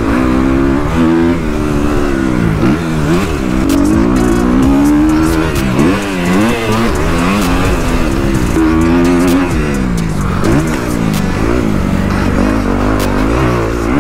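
Motocross bike engine revving up and down again and again, its pitch rising and dropping as the throttle is opened and closed.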